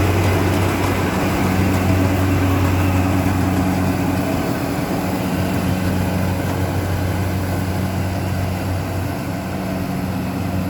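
Rice harvesting machine's engine running steadily at a constant speed, a low even hum.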